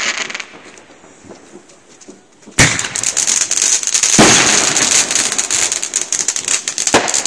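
Ground firework fountain going off about two and a half seconds in with a sudden bang, then a steady dense crackle and hiss of sparks, with a couple of louder pops.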